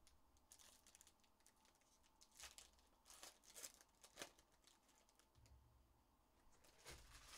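Foil wrapper of a Panini Prizm basketball card hobby pack being torn open and crinkled by hand. It comes as faint, scattered crackling bursts, with the strongest ones in the middle and near the end.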